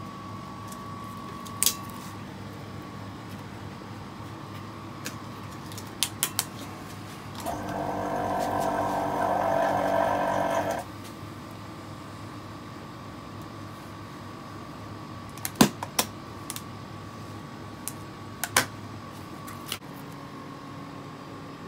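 A steady burst of compressed air, about three seconds long and cutting off suddenly, from the air-fed stand used to fit a new rubber grip onto a cricket bat handle. Sharp taps and clicks of handling come before and after it.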